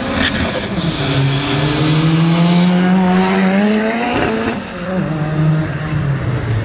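Car engine at full throttle accelerating down a drag strip, its pitch climbing steadily as it comes closer. It passes about four seconds in, and the pitch drops sharply as it goes away.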